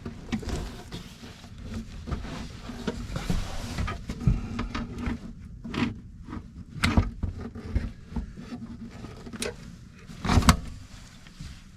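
Hands working with metal parts and screws on a truck power inverter: scattered clicks, rattles and knocks, the loudest about seven and ten and a half seconds in, over a steady low hum.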